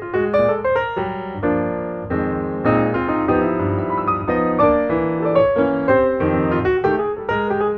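Background piano music, a quick, busy run of notes.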